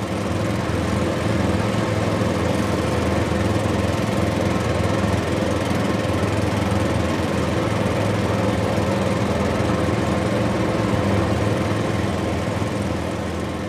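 Heavy-haul truck's diesel engine running steadily at low speed, an even, unbroken drone.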